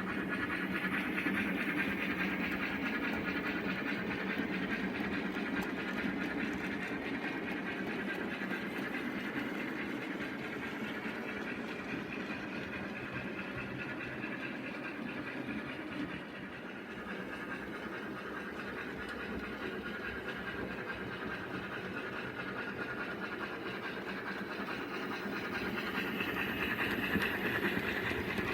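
OO gauge model locomotive running along the track: a steady electric motor whine with the running noise of its wheels on the rails. It eases off a little about halfway through and grows louder again near the end.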